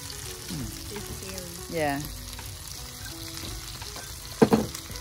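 Pork belly, mushrooms and vegetables sizzling steadily on an electric non-stick Korean BBQ griddle as they are turned with tongs, with a sharp knock near the end.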